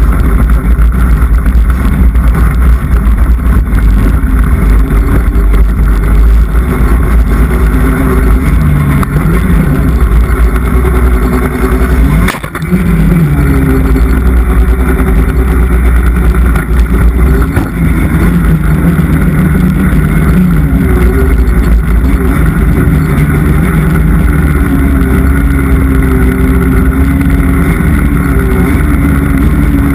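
Polaris snowmobile engine running hard at close range, its pitch rising and falling with the throttle as the sled climbs through snow. About twelve seconds in there is a sharp knock and the sound drops for a moment.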